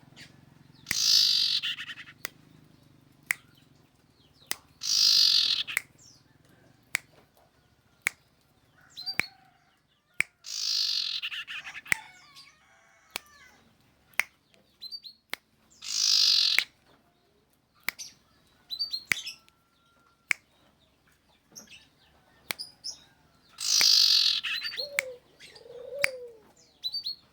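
Common iora (cipoh) calling: five loud, harsh calls of about a second each, falling slightly in pitch, with short chirps and sharp clicks in between.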